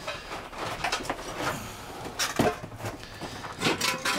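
Old car parts being shifted and knocked about inside a box truck's cargo area: several separate knocks and clatters, a few with a brief ring.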